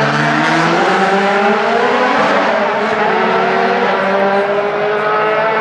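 Several DTM race cars' V8 engines running together as they accelerate past, their overlapping engine notes slowly climbing in pitch.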